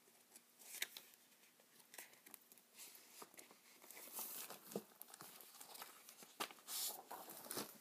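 Sheets of paper rustling as a stack is leafed through, in short faint scrapes and flutters with a few light clicks, the strongest about four seconds in and near the end.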